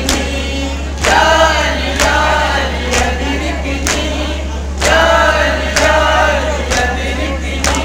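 A group of men chanting a noha in unison, with rhythmic matam (chest-beating) striking about once a second. A steady low hum runs underneath.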